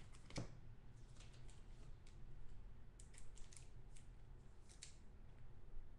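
Faint crinkling and ticking of clear plastic as a foil trading card is handled and slid into a clear plastic card sleeve, a scatter of short crackles spread over several seconds.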